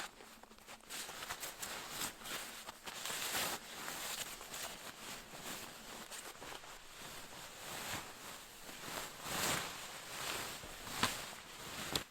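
Irregular crunching and rustling, like footsteps and movement in deep snow, with a sharp click about eleven seconds in.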